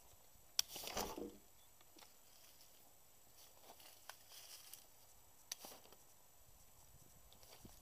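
Mostly near quiet, broken about half a second in by a sharp click and a short, falling rustle lasting under a second. A few faint clicks and rustles follow later.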